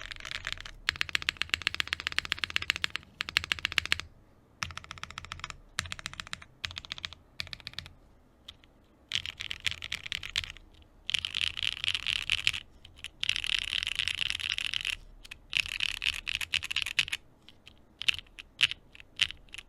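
Vertex Arc60 mechanical keyboard being typed on in fast runs of clacking keystrokes separated by short pauses, thinning to a few single key presses near the end.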